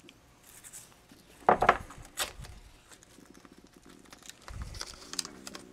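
Handling noises on a wooden workbench while masking tape is handled: a sharp knock about a second and a half in, a smaller click soon after, and a dull thump near the end.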